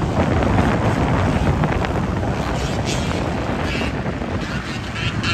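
Wind buffeting the microphone over the steady running of a small fishing boat's motor.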